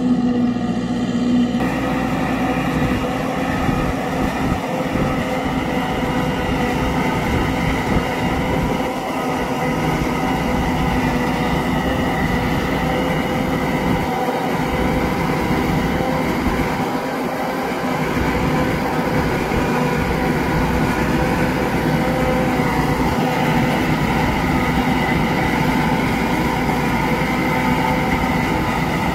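Massey Ferguson tractor running under load with its PTO-driven forage harvester chopping standing corn for silage and blowing it into a trailer: a steady machine drone with a constant pitched whine.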